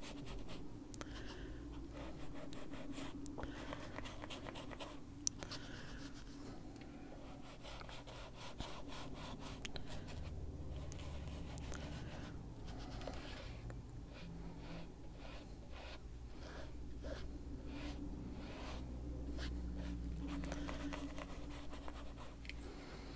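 Foam-tipped mini ink-blending tool rubbed over coloring-book paper in short strokes, a faint, irregular scratchy rubbing as green Distress Ink is worked into the page.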